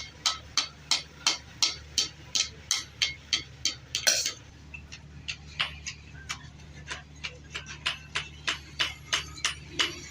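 Hand hammer blows struck in a steady rhythm of about three a second, with one heavier blow about four seconds in.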